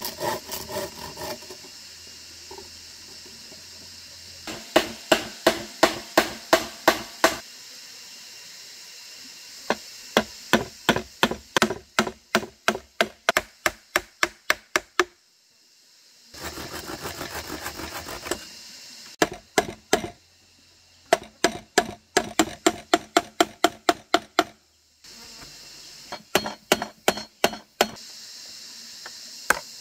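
Quick, sharp blows of a hand tool on wood, coming in bursts of about four or five strikes a second with short pauses between them. A brief stretch of hand sawing on timber comes a little past halfway.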